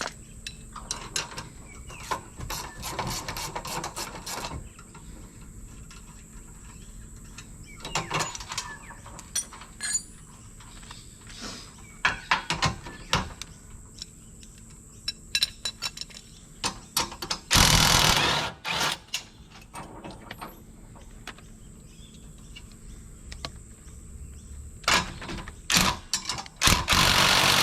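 Hand tools working on the bolts of a caravan's tow hitch: scattered metal clicks and knocks with ratchet clicking. There are two louder bursts of about a second each, one in the middle and one near the end.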